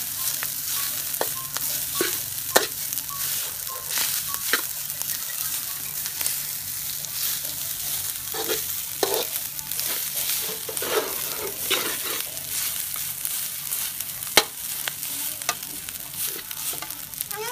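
Rice and diced sausage sizzling in a stainless-steel wok while a metal spatula scrapes and turns them, stir-frying. Two sharper clacks of the spatula on the pan stand out, about two and a half seconds in and about three seconds before the end.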